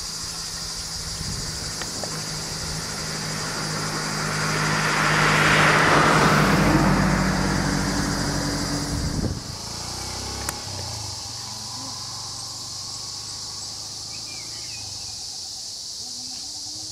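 A car drives past: engine and tyre noise swell to a peak about six seconds in, then cut off suddenly near nine seconds. A steady high drone of insects runs underneath throughout.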